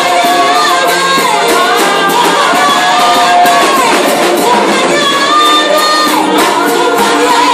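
Live gospel worship music: women singing into microphones, a lead voice with backing singers, over electric keyboard and drum kit, loud and continuous, with a little shouting from the room.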